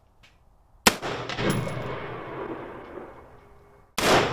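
Two shots from an M4-platform semi-automatic rifle, about three seconds apart, the first about a second in and the second near the end. Each is a sharp crack followed by a long echo that slowly dies away.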